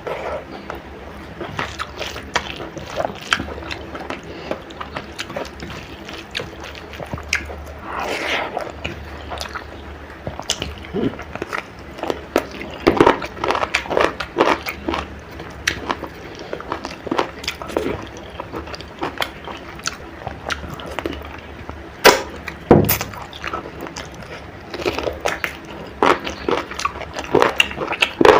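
Close-miked eating sounds of chicken curry with rice: wet chewing and smacking mouth noises with irregular clicks, and two sharp, loud cracks a little past the middle.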